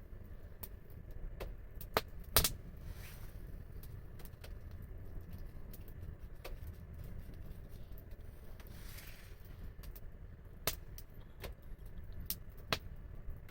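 Wood fire crackling, with scattered sharp pops: two louder ones about two seconds in and two more near the end, over a steady low rumble, and a soft hiss that swells and fades twice.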